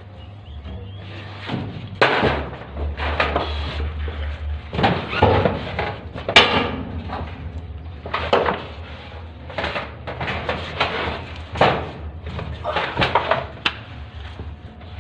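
Irregular knocks and bangs of hand work on a steel-framed ceiling, over a low steady hum.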